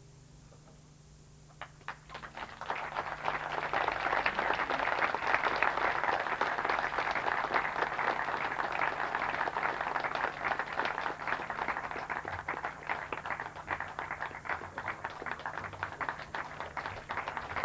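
A brief hush with a low electrical hum, then an audience starts applauding about two seconds in, a dense and steady clapping that keeps going.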